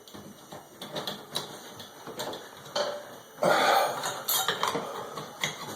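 Light metallic clicks and clinks of the light fixture's metal parts being handled while a nut is turned on its threaded rod, with one louder scrape lasting about a second, three and a half seconds in.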